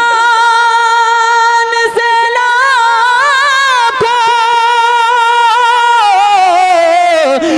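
A young male naat singer's high voice holding one long note over a microphone, unaccompanied. It is steady for about two seconds, then wavers in ornamented turns, and slides downward near the end.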